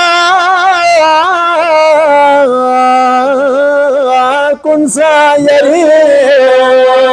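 A man sings a naat (devotional Islamic poem) with no instruments. He holds long notes with a wavering, ornamented pitch and takes a brief breath about four and a half seconds in.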